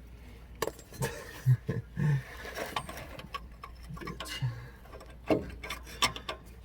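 Scattered, irregular clicks and knocks as a new front shock absorber and its mounting bolt are worked into place by hand.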